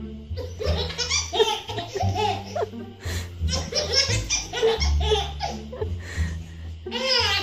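A baby laughing in repeated bursts, with a high squealing laugh near the end, over background music with low bass notes.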